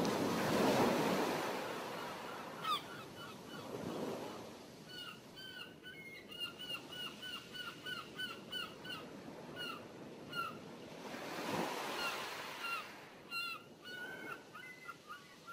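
Waves washing ashore in slow swells, with a bird calling over them in a long run of short honking notes, several a second, starting about five seconds in.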